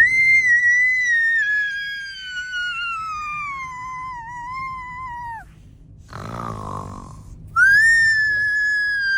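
A person imitating snoring: a long high whistle on the out-breath that slides slowly down in pitch, then a rough snort on the in-breath about six seconds in, followed by another falling whistle.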